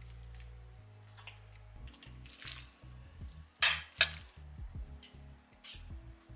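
Creamy pasta stirred in a stainless steel saucepan: wet scraping, with the utensil clanking sharply against the pan twice about halfway through. Background music with a steady beat runs underneath.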